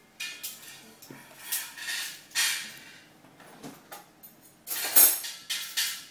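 Metal wire pastry blender chopping down through butter and flour, its wires scraping and clinking against a stainless steel bowl in quick, irregular strokes. There is a short lull in the middle, and the loudest clank comes about five seconds in.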